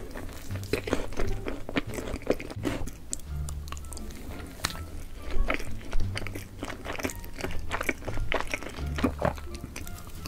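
Close-miked mukbang eating: repeated crunchy bites and chewing of food, over background music with low bass notes.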